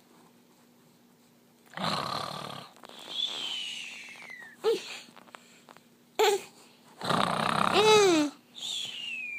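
A man doing exaggerated play-snoring: a rasping snore on the in-breath followed by a whistle that falls in pitch on the out-breath, twice. A small child's short voiced squeals come between them.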